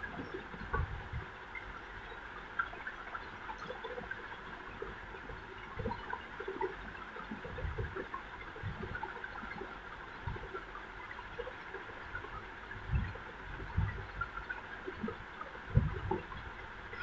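Soft, irregular knocks and taps of small kundan stones and a pointed tool being handled on a paper sheet, over a steady background hiss.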